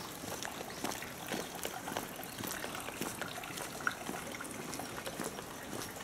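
Footsteps of someone walking along a stone and gravel path, a run of small irregular scuffs and crunches.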